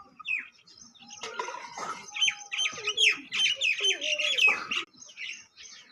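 Chicks peeping in a dense run of short, high, falling chirps, with lower calls from the aseel hen among them, while the brood feeds together.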